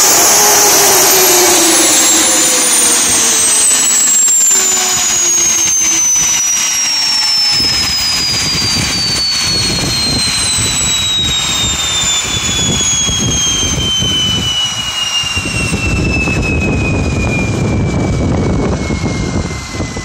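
Tiernay turbine engine spinning down, its high whine falling steadily in pitch as the rotor coasts. A low rumble comes in underneath from about halfway.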